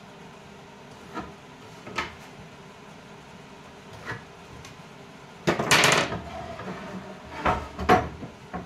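Wooden boards being handled on a workbench: a few light taps, then a longer scrape of wood on wood a little past halfway, followed by a quick cluster of knocks as a board is lifted.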